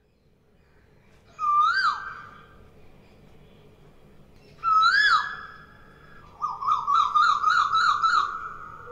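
Whistling: two calls, each a held note with a quick upward swoop and drop, then a fast warbling trill of about six wavers a second that fades away.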